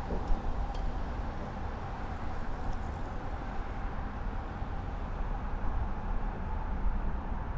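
Steady outdoor city background: a low rumble of traffic with a faint steady hum and a few faint ticks.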